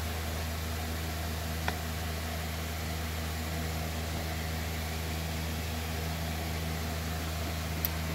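A steady low mechanical hum with a light hiss, and two faint clicks, one about two seconds in and one near the end.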